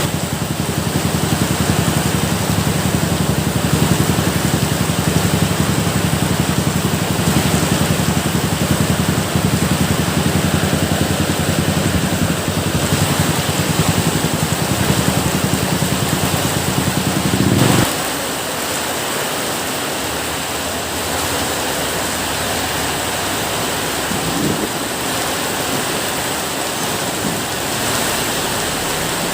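Steady rain noise with a low hum underneath. The hum swells briefly and cuts off abruptly about 18 seconds in, leaving the rain alone.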